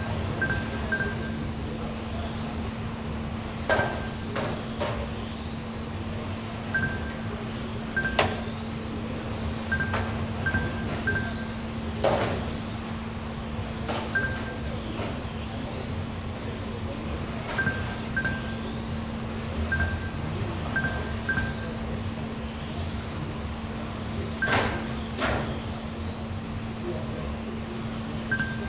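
1/12-scale GT12 electric RC cars racing, their motors whining up and down as they pass. Short beeps come in quick groups throughout, typical of a lap-counting system as cars cross the timing line, over a steady low hum with a few sharp knocks.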